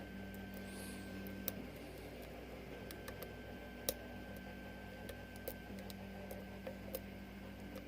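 Faint, irregular clicks of a lock pick working the pin tumblers of a six-pin Falcon lock cylinder under tension, a handful of sharp ticks a second or more apart, over a steady low hum.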